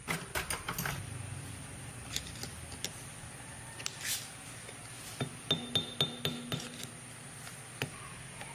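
Metal tools and parts clinking and tapping during work, with scattered sharp clicks and a quick run of clinks about five to six and a half seconds in, one of them ringing briefly.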